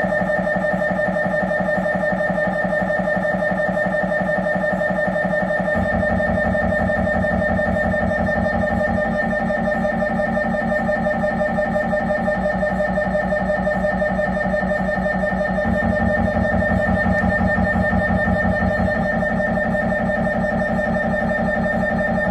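Siemens Magnetom Avanto 1.5 T MRI scanner's gradient coils running an imaging sequence: a steady buzzing tone over rapid, even pulsing. The low pulsing changes pattern several times as the sequence goes on.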